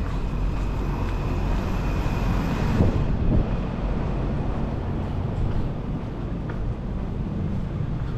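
Train running on an elevated railway: a steady rumble, with a faint high whine that stops about three seconds in.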